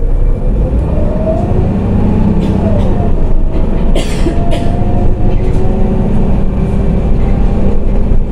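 Heuliez GX 127L city bus driving, heard from inside the passenger cabin: a steady engine and road rumble with a whining engine note that rises and falls several times. A brief hiss about four seconds in.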